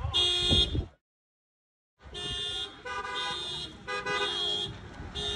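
Car alarm sounding in pulses of electronic tone about twice a second. It cuts out completely for about a second, about a second in, then resumes.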